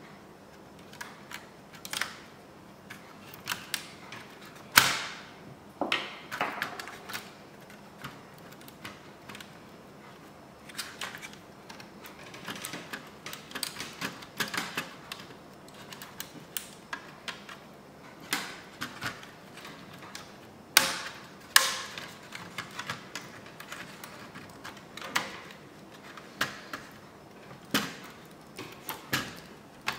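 Irregular clicks, taps and knocks of plastic and metal laptop parts being handled. A screwdriver works on screws, then the motherboard is worked loose from the plastic base of an HP Pavilion dv6000. The sharpest knocks come about five seconds in and twice just past twenty seconds.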